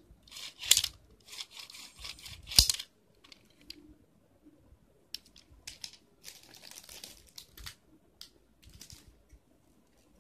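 Plastic toy packaging being torn open and crinkled in short bursts, with a sharp click about two and a half seconds in. Lighter rustling and clicks follow later.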